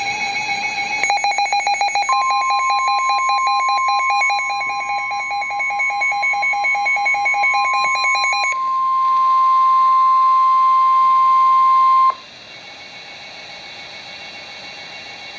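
NOAA Weather Radio warning alarm: a single steady 1050 Hz tone, held about ten seconds, that starts about two seconds in and cuts off sharply, signalling the severe weather warning that follows. Fast electronic beeping runs over the first part of the tone, and radio static swells beneath it before dropping to a quieter hiss after the cut-off.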